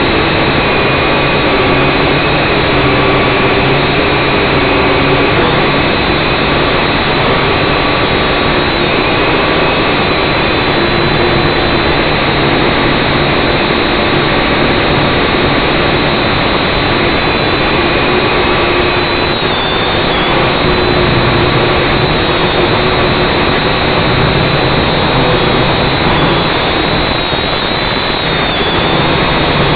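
Syma X5C quadcopter's four small brushed motors and propellers running steadily, heard close up from its own onboard camera: a loud whirring hiss with several faint tones that drift slightly in pitch as the throttle changes.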